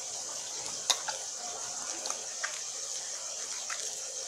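Small wet squishes and clicks of hands pulling the guts out of a large slit-open tilapia, the sharpest click about a second in, over a steady high hiss.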